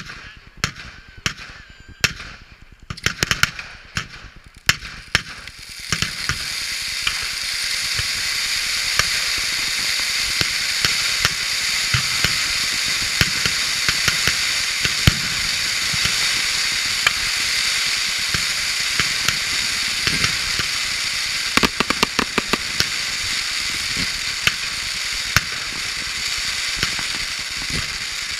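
Fireworks firing from the ground. For the first six seconds or so there are separate sharp cracks and bangs. Then comes a continuous loud hiss and crackle as the ground pieces spray sparks and shoot up stars, with a quick cluster of cracks about three-quarters of the way through.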